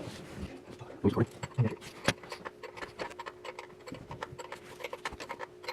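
Light, irregular metallic clicking and clinking of a wrench and fittings being worked on the fuel line connections of a lift pump, with a faint steady hum from about two seconds in.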